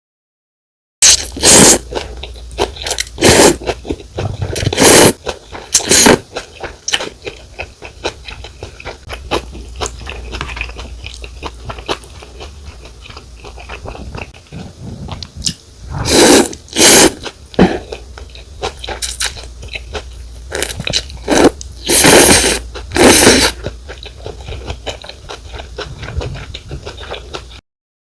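Close-miked eating of rice noodle soup: noodles slurped in several loud bursts in clusters, with wet chewing and mouth clicks between them.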